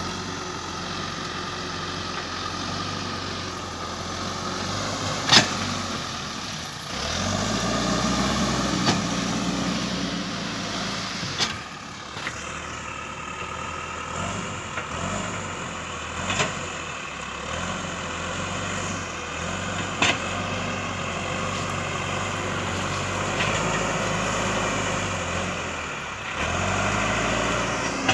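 John Deere 310E backhoe loader's diesel engine running and working under load, its pitch and level rising and falling as the machine works, with a few sharp knocks over it.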